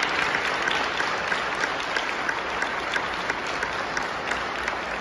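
Audience applauding, a steady mass of clapping at the end of a clarinet and piano performance.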